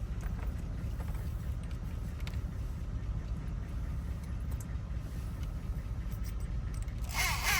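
Steady low rumble under a few faint clicks of tool work on a stuck car door lock, then near the end a short harsh scrape of a tool against the lock.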